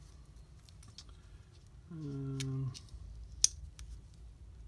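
Light clicks and rustles of small LiPo battery packs and their packaging being handled, with one sharp click about three and a half seconds in. A short hummed 'hmm' falls in pitch about two seconds in.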